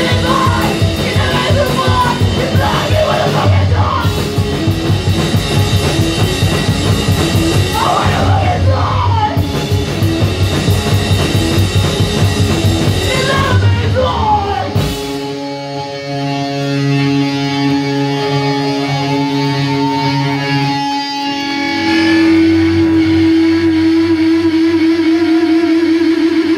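Live punk-metal band playing loud: distorted guitar, bass, drum kit and vocals into a microphone. About halfway through the drums and vocals stop abruptly and the guitars are left ringing, then a single steady guitar drone swells up and holds, wobbling near the end.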